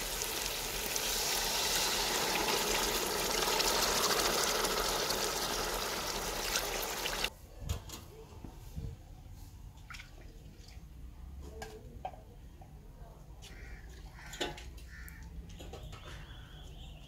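Water poured into a hot karahi of oil-fried whole masoor lentils, hissing and sizzling loudly as it hits the hot pan, cutting off suddenly about seven seconds in. Then more water is poured from a clay jug into the pot, much quieter, with a few faint clicks.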